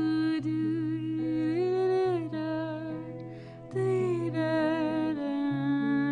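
A singer humming a slow, wordless melody over a guitar accompaniment in a live acoustic performance, with a breath taken about halfway through.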